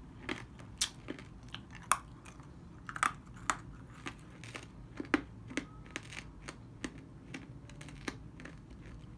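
Crunching and chewing a hard strawberry-flavoured candy coated in chili powder, bitten instead of sucked. Irregular sharp cracks come one after another with short gaps.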